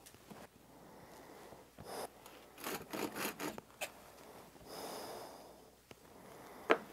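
Faint handling noises of wood: a few light clicks and scrapes as a cut plywood hexagon and a chisel are handled on the sawdust-covered template, with a soft rushing sound about five seconds in and a sharp click near the end.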